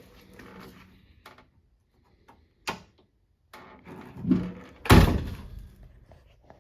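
A 1966 Ford Mustang car door being worked by its newly refitted handle: a sharp latch click, a short rattle, then the door shut with a loud thunk about five seconds in. The striker is still out of line, so the door does not shut as well as it should.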